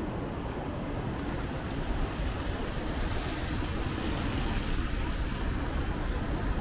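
Wet city street ambience in light rain: a steady hiss over a low rumble, swelling briefly about three seconds in.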